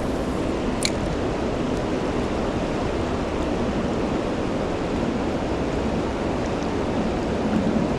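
Steady rushing of a fast, flood-swollen river current, with one brief sharp click about a second in.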